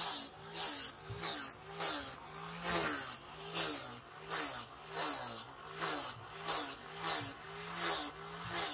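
Angle grinder with a sanding pad working a wooden knife handle in repeated passes, about two a second; the motor's pitch dips and recovers as the pad is pressed onto the wood and eased off.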